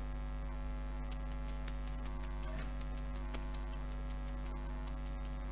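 Steady electrical mains hum with a quick run of faint, very high ticks, about seven or eight a second. The ticks start about a second in and stop near the end.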